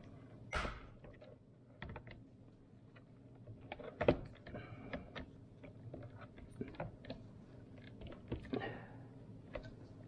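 Pliers working a hose clamp off the dishwasher's wash motor: scattered metal clicks and short scrapes, with one sharp knock about four seconds in.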